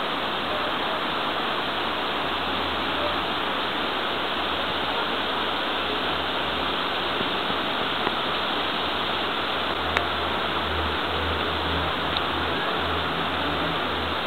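Steady rushing noise, with a low hum underneath that grows stronger and starts to pulse about ten seconds in, and a single short click near the same point.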